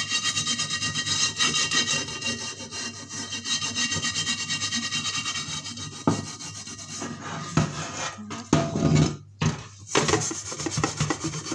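Rapid back-and-forth scrubbing of a frying pan's greasy, burnt-on base with a scourer, about five strokes a second. About halfway through, the scrubbing breaks off for a few knocks and clatters as the pan is handled, then picks up again near the end.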